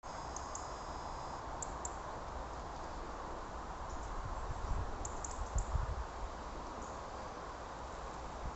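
Steady faint outdoor hiss with a few soft low thuds about halfway through and scattered tiny high clicks.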